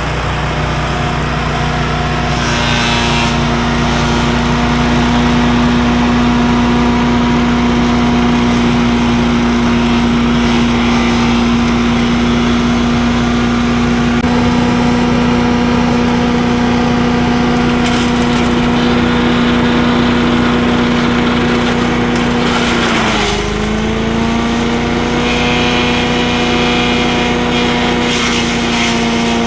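Small gasoline engine of a wood chipper-shredder running steadily. About 23 seconds in its pitch drops sharply and climbs back over a second or two, as when the engine bogs under a load of brush and recovers.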